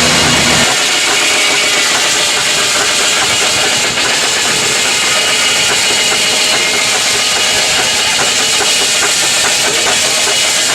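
Steady, loud hissing machinery noise with no change in pace; a deeper engine hum underneath drops away within the first second.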